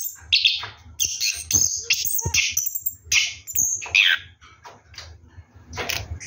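Orange-headed thrush singing a rapid, continuous run of varied chirps and short whistled notes, with brief pauses between phrases.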